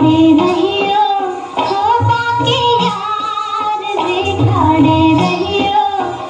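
Recorded Hindi film song playing loudly: a woman singing a wavering, ornamented melody over drum accompaniment.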